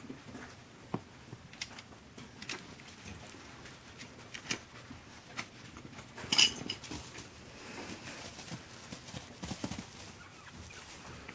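Two young Chihuahua puppies playing and scrambling on bedding and puppy pads: scattered light taps, scratches and rustles, with one sharper click about six seconds in.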